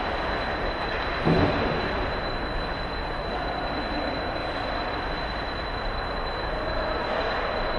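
Ice hockey play on an indoor rink: skates scraping and gliding on the ice over the steady noise of the arena, with one sharp knock about a second and a half in.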